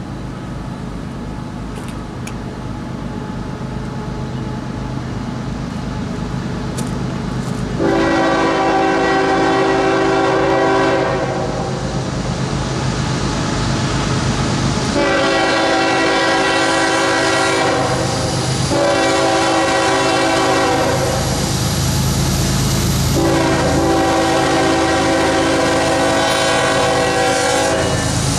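Diesel freight locomotive approaching with a low rumble that grows louder, then sounding its air horn in a chord of several notes: long, long, short, long, the standard grade-crossing signal.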